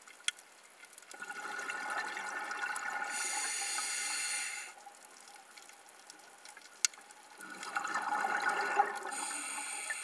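Scuba diver breathing through a regulator underwater: two breath cycles, each a few seconds of rushing bubbles and hiss. Two sharp clicks come between them.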